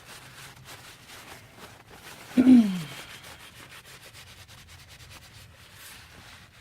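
Rapid rubbing and wiping over the brake fluid reservoir cap, cleaning it off before it is opened. About two and a half seconds in, one short, loud sound falls in pitch.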